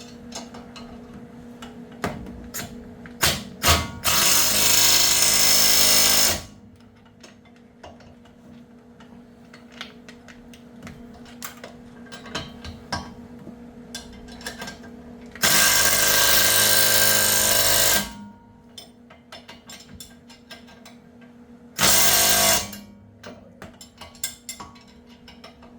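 A 3/8-inch-drive power wrench running bolts down on a mini truck's front suspension, in three bursts: two of about two and a half seconds each and a short one near the end. Light metallic clicks and clinks of hand tools and parts come between the bursts.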